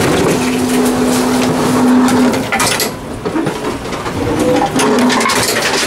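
Tomra reverse vending machine running: a steady motor hum that stops a little over two seconds in, over continuous rattling and clatter of containers.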